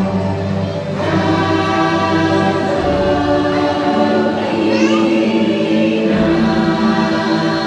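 Choral music from the ride's soundtrack: a choir singing long held notes over music, with a brief rising sound about five seconds in.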